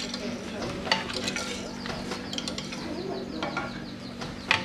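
Hand-worked silk-processing equipment clicking and clacking at irregular intervals, over a steady low hum.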